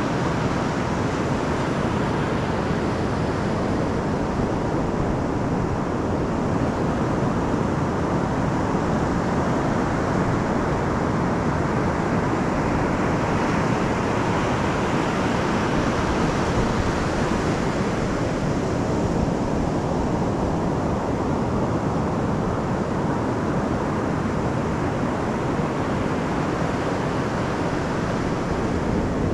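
Pacific surf breaking offshore and washing up a sandy beach: a steady, even rush of waves. The hiss grows brighter for a few seconds near the middle as a wave washes in.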